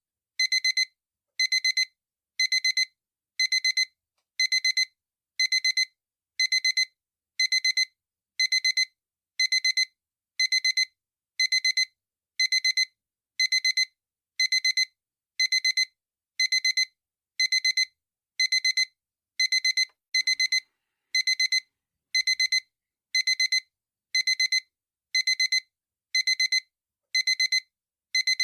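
Digital alarm clock beeping: a high electronic beep sounding in quick double beeps about once a second, at an even, unchanging rhythm.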